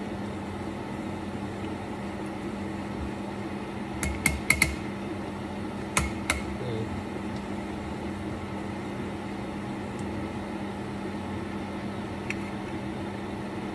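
A knife cutting Spam into cubes on a plate, the blade ticking against the plate: a quick cluster of sharp clicks about four seconds in, two more around six seconds, and one near the end. A steady low mechanical hum of a kitchen appliance runs underneath.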